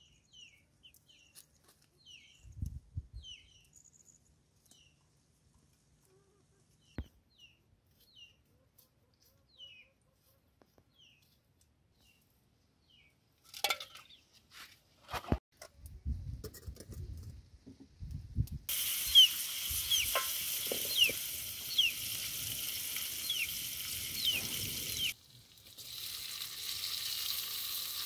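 Birds chirping faintly, with a few knocks and clicks as bowls and cut tomatoes are handled. About two-thirds of the way in, a steady loud sizzle of cooking oil and onions frying in an aluminium pot over an open wood fire begins abruptly, stirred with a wooden spoon.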